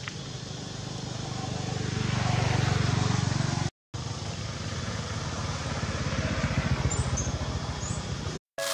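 A motor vehicle engine running close by: a low pulsing hum that swells over the first three seconds, breaks off for a moment about four seconds in, then carries on.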